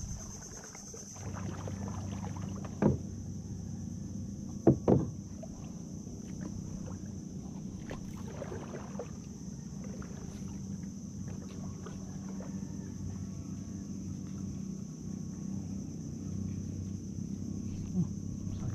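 Small wooden outrigger boat being paddled and drifting: water lapping at the hull, with a few sharp knocks of the wooden paddle against the hull, the loudest about three and five seconds in.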